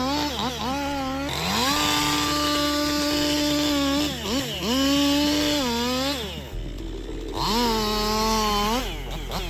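Chainsaw engine revving up and down, held at high revs for a second or two at a time between quick drops in pitch; about two-thirds through it cuts abruptly to another saw revving the same way.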